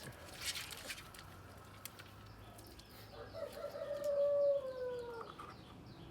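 A rooster crowing once, a single long call that starts about three seconds in, holds its pitch and then falls away at the end.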